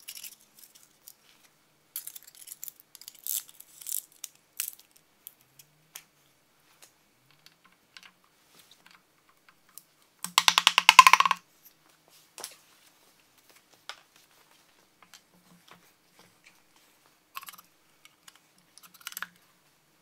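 Hand tools on a bare engine block: scattered metal clicks and clinks as connecting-rod bolts are worked on. About ten seconds in comes a rapid run of ratchet clicks lasting about a second, the loudest sound.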